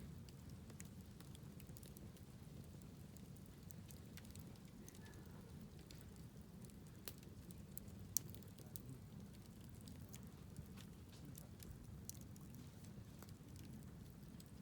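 Wood fire crackling softly, with scattered small pops and a sharper pop about 8 seconds in, over a faint low rumble.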